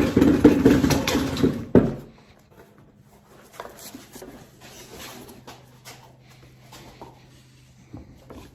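Wooden cart frame on caster wheels being flipped over: loud wood knocking and scraping for about two seconds. Then it goes quieter, leaving a faint steady low hum and a few scattered light knocks.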